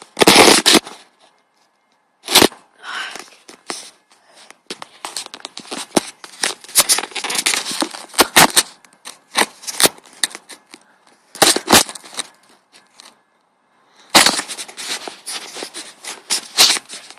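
Electric RC car running over rough ground: irregular crackling and scraping with several sharp knocks, the loudest right at the start and others about two, eleven and fourteen seconds in.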